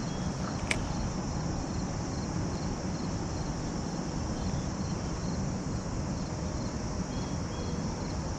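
Crickets chirping steadily, a high insect trill with regular short chirps about three a second, over a low even background hiss. One sharp click comes just under a second in.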